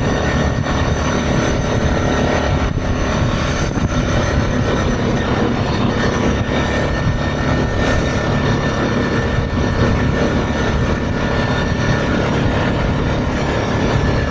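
ATV running steadily at riding speed along a gravel road shoulder: an even engine drone mixed with tyre and wind noise.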